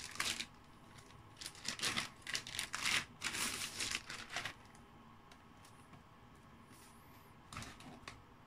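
Clear plastic protective bag crinkling and rustling in quick irregular bursts as a laptop is slid out of it. This lasts about four and a half seconds, and a brief rustle follows near the end.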